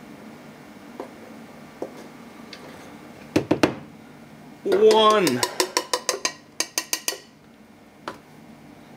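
A measuring cup and utensils clinking and knocking on a plastic flour container as flour is scooped out: two sharp knocks a few seconds in, then a quick run of taps, about six a second, for a couple of seconds. A short wordless vocal sound that falls in pitch comes just as the taps begin.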